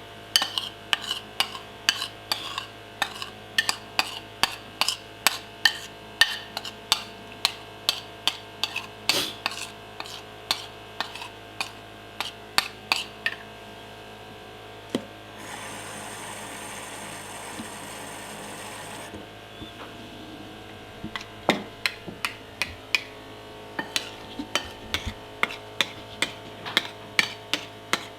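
A spoon clicking against a bowl about three times a second while stirring and rubbing annatto seeds in water to draw out their colour. The clicking stops about halfway for a few seconds of steady hiss, then starts again.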